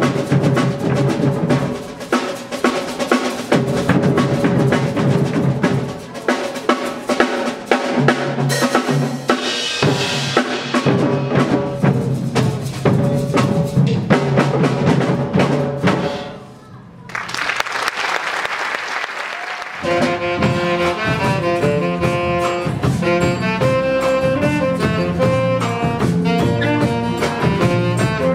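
Youth percussion ensemble playing a drum kit and hand drums in a dense, steady groove. After a brief drop about two-thirds in, a band with saxophones and drum kit plays a rhythmic tune.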